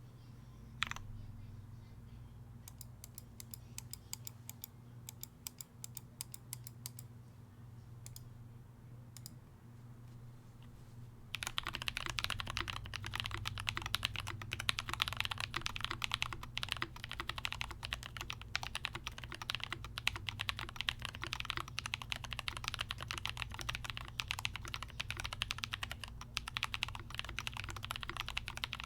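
Typing on a computer keyboard: a few light, scattered keystrokes at first, then from about eleven seconds in, fast continuous typing, noticeably louder. A steady low hum lies underneath.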